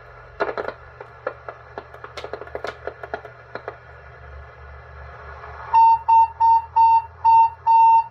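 Crackling clicks as a signal-tracer probe is worked along the mic-jack wiring of a Cobra 142 GTL CB radio. Near the end comes a steady-pitched whistle tone in six short beeps, about two a second: the little train-whistle squeal that interference is putting into the radio's audio.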